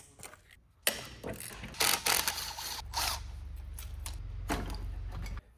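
Ratchet wrench working engine fasteners loose: a steady mechanical run starting about a second in, louder around two seconds, that stops suddenly near the end.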